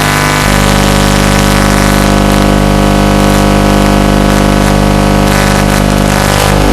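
A 5-inch FPV quadcopter's brushless motors spinning at a steady speed: a loud, unchanging hum of many pitches over a hiss.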